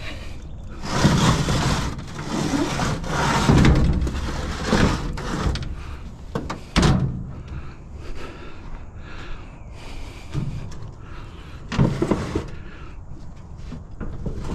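A heavy scrap item being tipped up and shifted by hand: long rough scraping and rattling in the first half, then sharp knocks about seven seconds in and again near twelve seconds.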